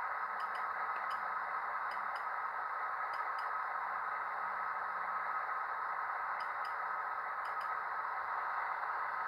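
Model F40PH diesel locomotive running under its onboard sound decoder: a steady diesel engine sound through the model's small speaker, with light clicks in close pairs several times as its wheels pass over rail joints.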